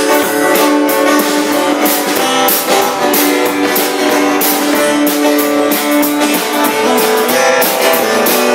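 A band plays an instrumental passage between sung lines: guitars strumming and sustaining notes over an even beat.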